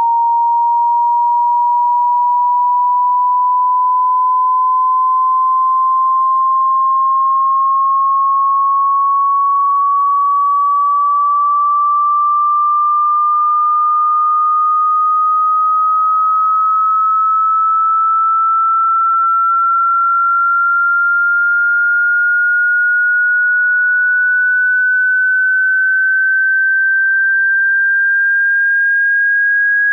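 Electronically generated pure sine test tone of a hearing test, sweeping slowly and smoothly upward in pitch at an even loudness, without a break.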